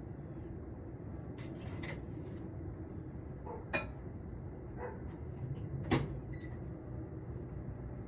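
A dog giving a few short, sharp barks, spaced irregularly, the loudest about six seconds in, over a steady low hum of traffic.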